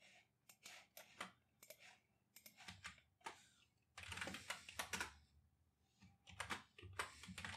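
Faint computer keyboard typing: scattered key clicks, with quicker runs of keystrokes about four seconds in and again near the end.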